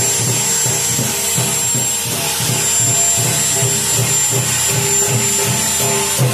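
Electric hand drill running steadily with its bit pressed against bare skin, its motor whine holding one high pitch. Rhythmic music with an even beat plays along behind it.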